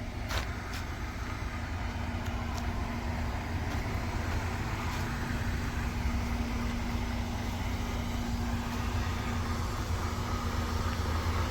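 Semi-truck's engine running with a steady low rumble and a steady hum, slowly growing louder; a couple of clicks right at the start.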